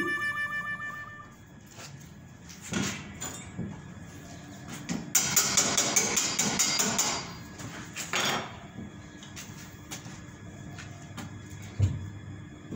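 Stick (arc) welder's arc crackling for about two seconds as the cut steel trolley frame is welded back together, with a shorter burst of arc a second later.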